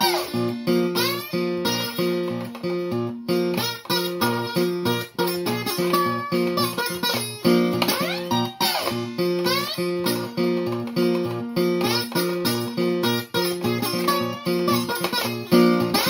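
Acoustic guitar played bottleneck-style with a metal slide, in Delta blues style. A steady thumbed bass pattern runs under treble notes that slide up into pitch again and again.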